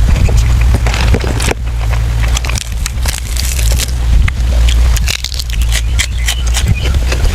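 Close-miked eating: chewing, biting and wet mouth sounds from a mukbang of braised pork intestines, in a run of many quick clicks and crunches. A steady low rumble sits underneath.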